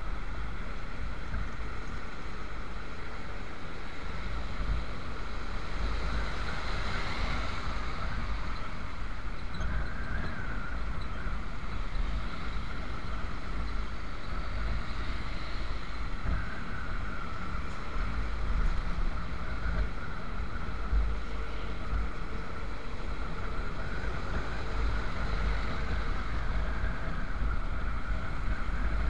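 Wind buffeting the microphone of a moving motorcycle, a heavy uneven rumble over steady engine and road noise.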